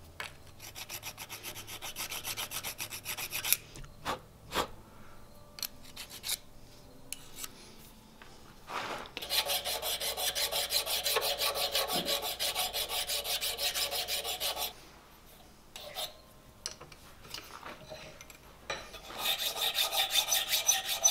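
Hand file rasping across a small forged steel key clamped in a vise, in three runs of quick, even strokes, the longest about five seconds. A few scattered clicks and taps fall in the pauses between runs.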